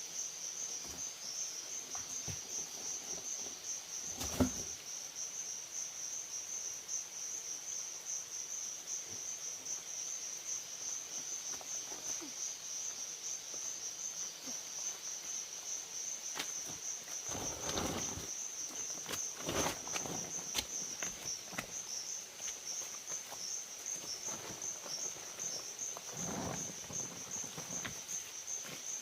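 A steady, high-pitched insect chorus with a fine, even pulse, like crickets trilling. A sharp knock comes about four seconds in, and brief rustling or handling noises come a few times in the second half.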